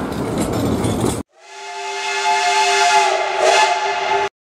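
Steam locomotive whistle sounding one steady chord of several tones over hissing steam, fading in and then cutting off suddenly. Before it, about a second of noise from a tram running past.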